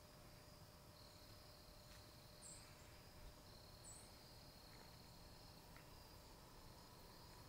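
Near silence with faint, high insect trilling that stops and starts in stretches of a second or more, and two brief higher chirps about two and a half and four seconds in.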